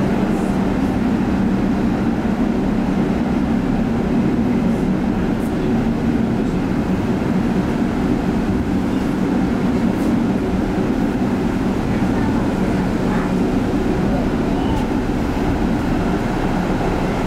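A 1960 PCC tram running along the track, heard from aboard: a steady rumble of wheels on rails with a low hum running under it.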